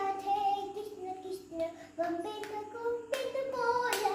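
A young child singing a devotional bhajan in long, held notes, with a couple of sharp clicks in the last second or so.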